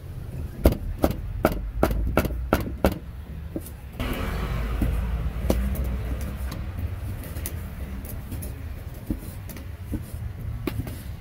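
About eight sharp knocks in some three seconds, like a cleaver chopping roast pork on a wooden block. About four seconds in, a steady hiss starts suddenly. Road traffic rumbles underneath throughout.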